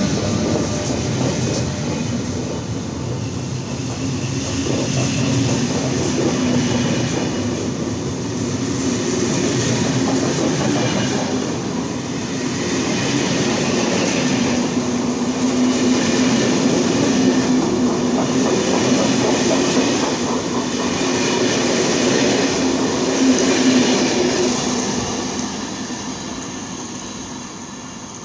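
SNCF Corail passenger coaches of a departing train rolling past along the platform, wheels running on the rails with a steady rumble and a repeating rise and fall as each coach goes by. Near the end the sound fades as the train pulls away.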